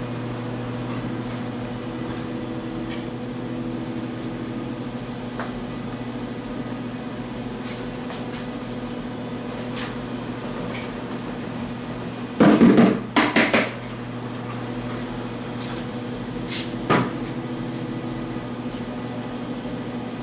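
A plastic container knocked several times in quick succession against the rim of a glaze bucket to shake out EPK kaolin powder, about twelve seconds in, with one more knock a few seconds later. A steady hum runs underneath.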